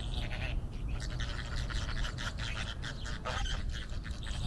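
A flock of Chilean flamingos calling: a dense chatter of many short, overlapping calls.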